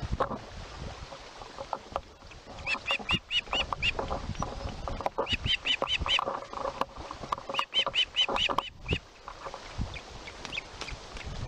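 Ospreys calling: three runs of quick, repeated high whistled notes, about five or six notes in each run.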